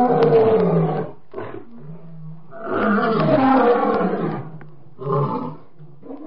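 Lion roaring: a series of long, rough calls, each about a second long, with short pauses between them.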